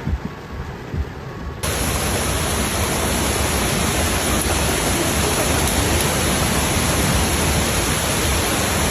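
Heavy floodwater rushing and pouring in a steady, loud roar that starts abruptly about a second and a half in. Before that comes a quieter rumble of rain and water with a few low thuds.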